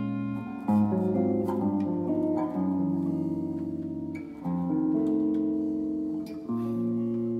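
Free improvisation: a semi-hollow electric guitar picks notes over sustained reedy chords from a free-reed instrument, and the chords shift about every two seconds.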